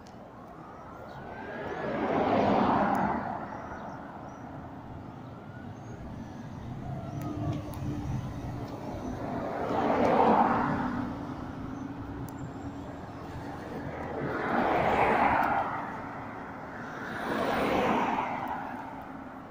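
Four cars passing one after another, each a swell of tyre and engine noise that rises and fades over about two seconds, with a low steady hum underneath in the second half.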